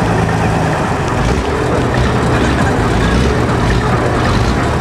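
A large vehicle engine running steadily and loudly, with a low rumble.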